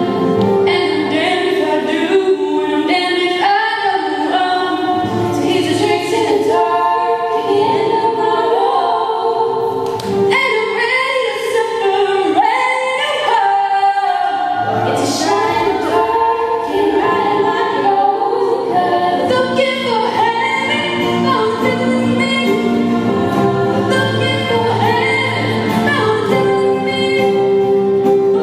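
Female vocal group singing in layered harmony through stage microphones.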